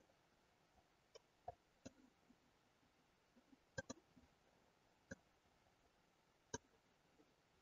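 Faint, scattered clicks of a computer mouse and keyboard against near silence, about seven in all, with a quick pair of clicks near the middle.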